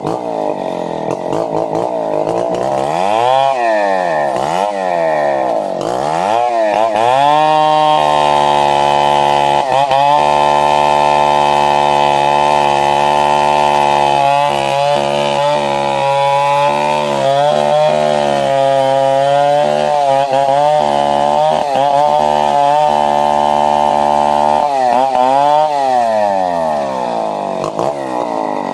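Chainsaw revved up and down several times, then held at full throttle cutting through wood, its pitch dipping now and then under load, before falling back to idle near the end.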